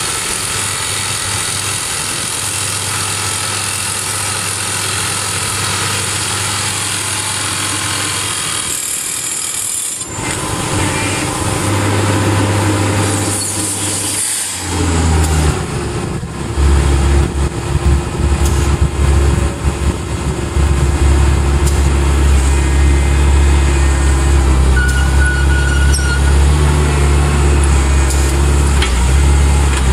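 SOOSAN STD14E crawler drill rig running: a steady machine noise that dips about ten seconds in, then halfway through the engine speeds up with a rising tone and runs louder and deeper, steady.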